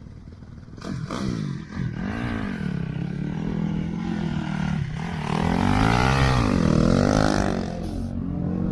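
Dirt bike engine revving up and down repeatedly as it rides past close by on sand, starting about a second in and loudest about six to seven seconds in.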